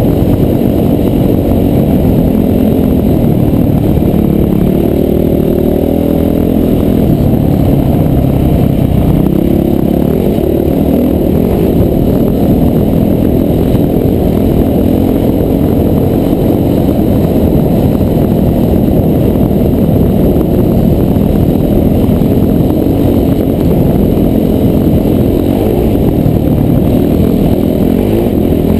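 Off-road dirt bike engine under way, its note rising and falling as the throttle opens and closes, heard from the rider's helmet over a dense, steady low rumble.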